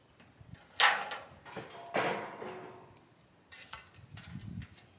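Two ringing metal clanks about a second apart as a metal pail is handled against a steel burn barrel, followed by a few lighter clinks.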